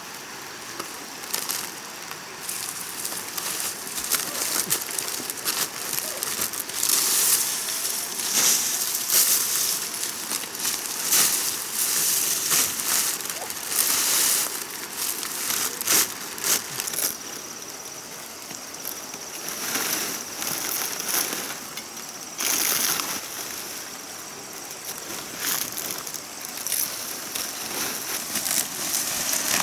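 Irregular rustling and crackling of dry material being handled, with many short sharp snaps, coming in busy spells.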